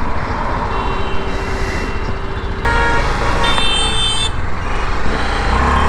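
City road traffic heard from a moving motorcycle: steady engine and road noise, with a vehicle horn honking for about a second and a half near the middle as the engine rumble grows louder.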